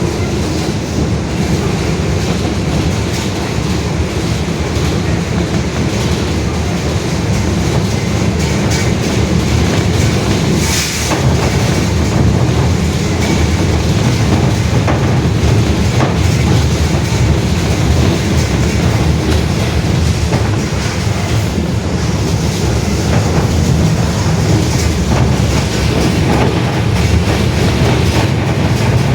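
Mercedes-Benz OF-1721 city bus under way, its rear differential roaring very loud over the steady rumble of the drivetrain and road. A short hiss about eleven seconds in.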